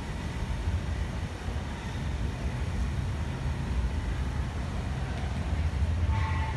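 Steady low rumble of railway station ambience, with rail vehicles running, and a brief pitched tone about six seconds in.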